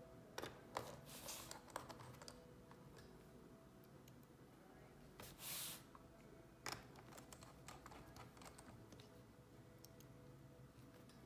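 Faint scattered clicks and taps of a small screwdriver and tiny screws being worked into a laptop's bottom case, with a brief scraping rustle about five seconds in.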